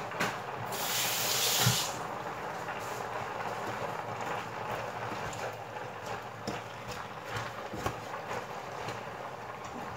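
Leeks, carrots and potatoes cooking in a steaming steel pot, giving off a steady hiss, with a louder hiss for about a second near the start. Faint clicks of a wooden spoon stirring in the pot follow.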